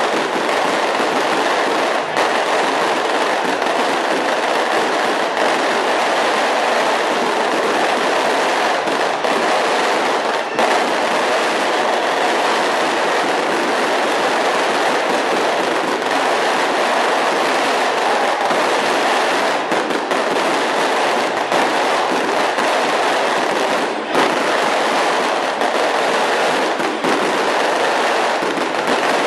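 A large crowd cheering and clapping loudly and without a break, with a few sharper cracks standing out now and then.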